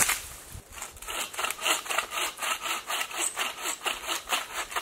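Hand saw cutting firewood: steady back-and-forth strokes, about three a second, starting about a second in after a single knock.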